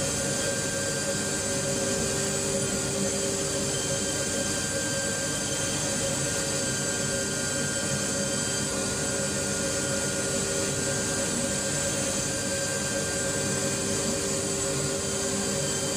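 CNC milling machine's spindle cutting an insole blank, with its dust extraction running: a steady, unchanging machine whine and hiss.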